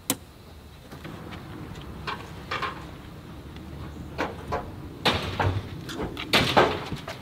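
Knocks and scraping from hand work on a house's exterior wall: one sharp knock at the start, then scattered knocks and scrapes that come thicker and louder from about five seconds in.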